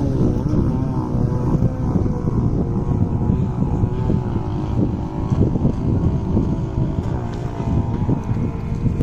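Petrol engine of a gas-powered RC model boat running on the water, its pitch wavering up and down with the throttle, with wind buffeting the microphone.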